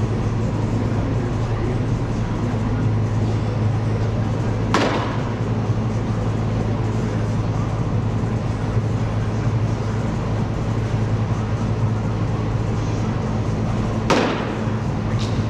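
Steady low hum of a large indoor training hall, with two sharp smacks of a thrown baseball landing, about nine seconds apart, the second followed about a second later by a lighter one.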